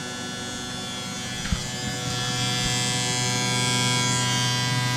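Benchtop fuel injector tester-cleaner running, its pump and pulsing injectors making a steady electric buzz as fuel sprays into the graduated glass cylinders. There is a single click about a second and a half in, and the buzz grows louder about two seconds in.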